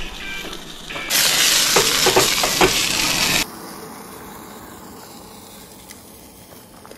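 Food frying in a hot pan, a loud sizzle with a few knocks of a utensil stirring it. The sizzle cuts off suddenly about three and a half seconds in, leaving a faint steady hiss.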